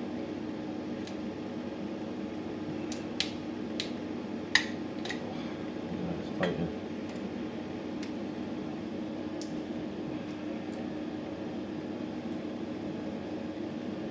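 Steady motor hum of a hobby spray-booth extractor fan running, with a handful of light clicks and taps from small plastic model parts and tweezers being handled, the sharpest a little under halfway through.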